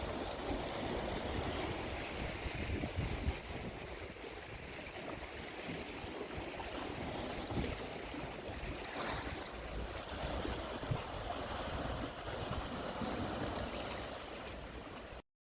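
Sea waves washing along the shore, with wind buffeting the microphone in low rumbling gusts; the sound cuts off abruptly near the end.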